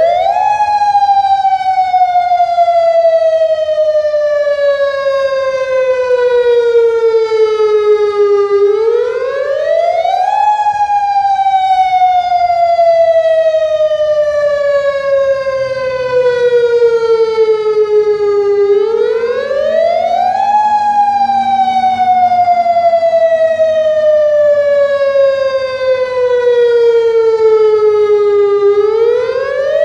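Federal Signal Modulator electronic outdoor warning siren sounding a storm warning system test tone. The pitch rises quickly over a second or two, then falls slowly for about eight seconds, and the cycle repeats about every ten seconds, three times over.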